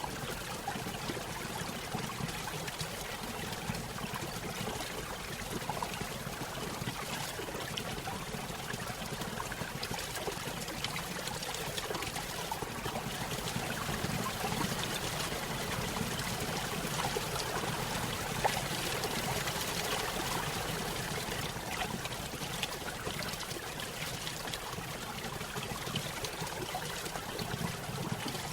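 Small stream spilling over a little waterfall: steady trickling and splashing water that runs on without a break.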